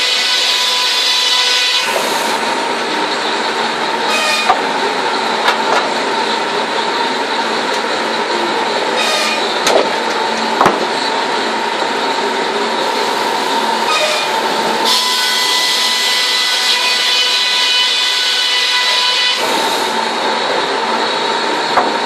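Sawmill circular saw bench running with a steady whine, its sound fuller and lower while sawing through timber from about two seconds in until about fifteen seconds, and again near the end. A few sharp knocks of timber sound among it.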